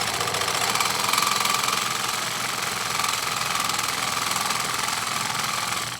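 Ridgid RP 340 battery press tool's motor running steadily through a press cycle on a 2-inch Viega copper fitting, cutting off suddenly as the press completes.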